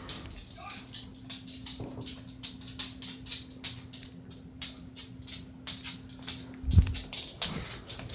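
Snoring: a run of short sharp clicking sounds, about three a second, with one deep low thud near the end.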